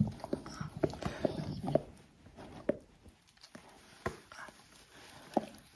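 Mother dog licking and cleaning her newborn puppy: irregular wet smacking clicks, busy for the first two seconds or so and then sparse.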